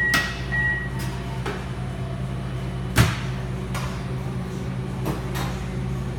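A countertop high-speed oven beeps near the start as its door is pulled open. A hot mesh basket of fried chicken is then taken out and handled, giving a string of knocks and clanks; the loudest is a sharp clank about three seconds in. A steady low hum runs underneath.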